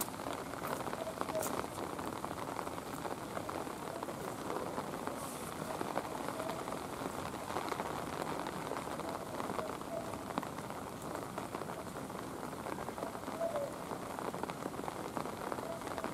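Steady rain falling on wet pavement, a dense, even patter of drops.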